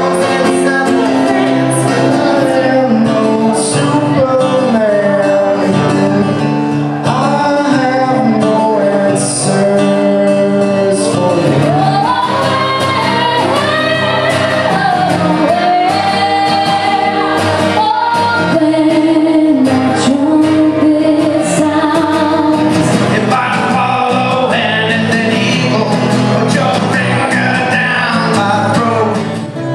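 A song sung with instrumental accompaniment, the voice moving over steady held notes.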